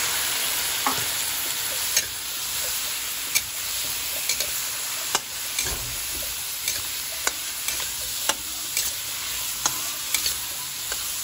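Freshly added raw chicken wings sizzling in hot oil in a stainless-steel pan with sautéing garlic and onion, a steady hiss. A metal spatula stirs them, clicking and scraping against the pan every second or so.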